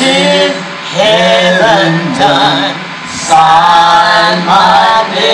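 Voices singing a slow gospel spiritual in drawn-out, wavering phrases of about a second each.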